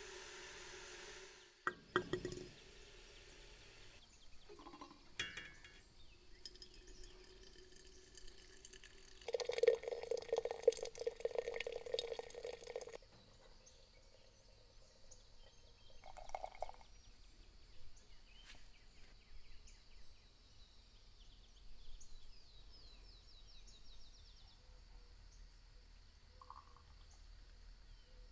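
Hot water running from a samovar tap into a glass teapot for a few seconds, then a brief second pour, with light clinks of glass. Faint bird chirps follow later.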